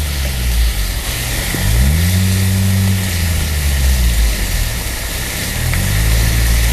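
A motor engine running, its low hum rising in pitch about two seconds in, holding, dropping, then rising again near the end. Under it, a steady hiss of meat sizzling on a hot stone over a wood fire.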